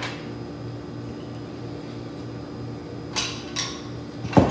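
Steady fan-like hum, with a couple of light kitchenware scrapes about three seconds in and a sharp knock near the end as a measuring spoon and jar are worked at a stainless steel mixing bowl.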